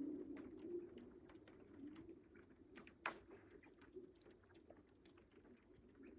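Lake ice cover humming and moaning in a low, wavering tone, broken by many short sharp cracks and pings from the ice, the loudest about three seconds in. These are the sounds of a lake's ice sheet shifting as it breaks up in spring.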